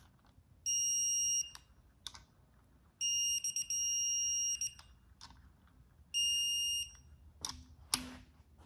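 Digital torque wrench beeping with a high electronic tone three times, the middle beep held longest, each beep signalling that a rocker arm bolt has reached its set torque. Ratchet and tool clicks come between the beeps, with a sharper clack near the end.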